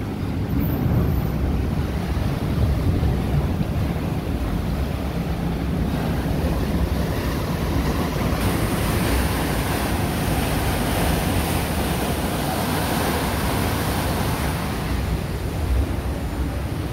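Steady low rumble of a Star Ferry under way with water churning along the hull, and wind buffeting the microphone. A brighter hiss joins about halfway through and fades shortly before the end.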